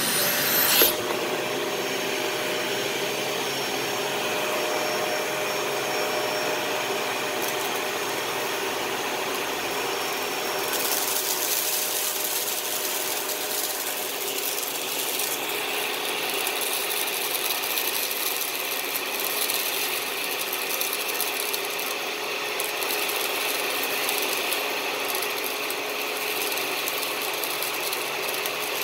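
Dyson DC41 Animal ball upright vacuum cleaner running steadily, its motor and brush roll giving a constant whine. The higher part of the sound brightens about eleven seconds in.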